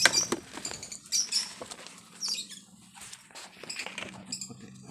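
Sheets of paper rustling as a notebook is handled, with a knock at the very start. Birds chirp in the background.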